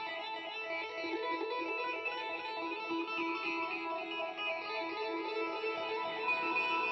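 Background music: a guitar playing melodic notes without drums or singing.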